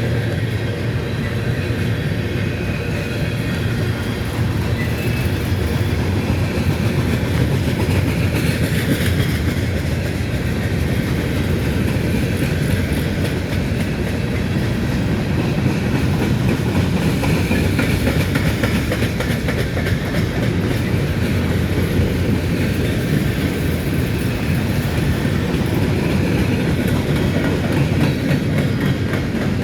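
Train of empty grain hopper cars rolling past, with steady wheel noise on the rails.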